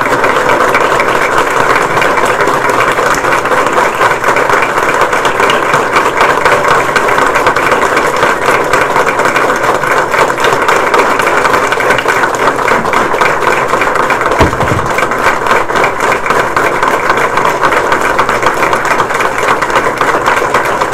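Sustained applause from a crowd: dense, steady clapping with no letup.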